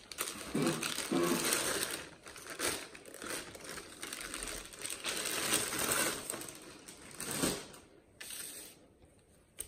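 Clear plastic bag crinkling and rustling as it is worked off a small telescope. The crinkling dies down about eight seconds in.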